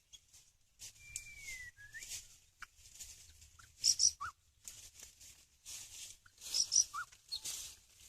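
White-rumped shama whistles: one drawn-out whistle falling in pitch about a second in, then short sharp high notes and lower chips twice, among repeated hissing rustles.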